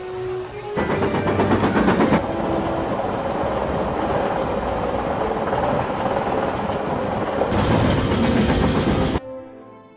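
Steam train running at speed: a loud rushing noise with rapid rhythmic clatter, swelling twice and cutting off abruptly about nine seconds in.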